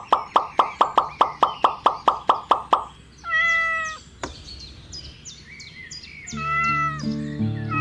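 A fast run of about sixteen short plopping notes, each falling in pitch, then two short pitched animal calls a few seconds apart, with background music coming back under the second one.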